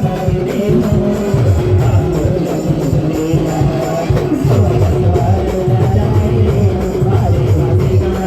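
Adivasi band playing a Timli dance tune: a melody over a steady, repeating bass and drum beat.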